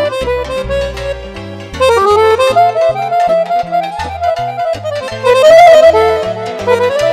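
Lăutărească band playing an instrumental interlude led by accordion, with fast melodic runs over a moving bass line.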